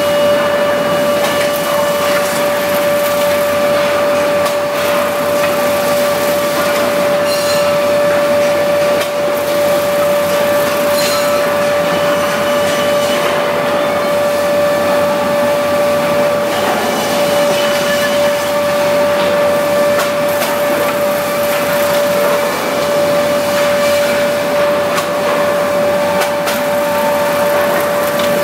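REX woodworking planing machine running steadily, a continuous loud machine noise with a strong steady whine, and a few faint ticks partway through.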